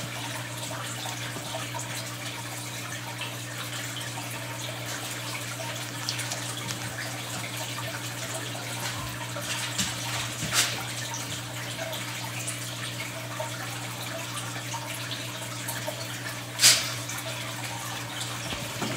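Steady low electric hum with running, trickling water, typical of an aquarium filter or pump. Two short clicks, one a little past halfway and one near the end.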